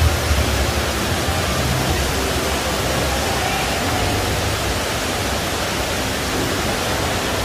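Steady rushing of an indoor artificial waterfall pouring down rock-work, heard as an even, unbroken wash of noise.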